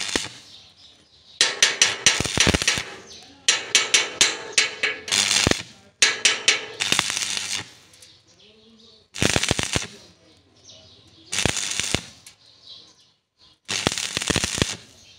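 Electric arc welding tack welds on an iron gate frame: a series of short crackling, sizzling bursts, each lasting about one to two seconds, with pauses between them.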